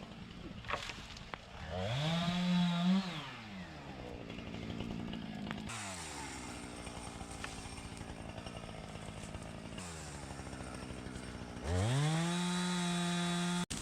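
Two-stroke chainsaw revved up to full throttle about two seconds in, dropping back to a lower run in the middle, then revved up again and held high near the end before cutting off suddenly.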